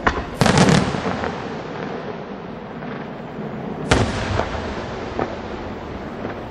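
Aerial firework shells bursting overhead. A sharp bang at the start is followed by a heavier cluster of reports about half a second in, then another loud bang near four seconds. Each is followed by an echoing rumble and scattered smaller pops.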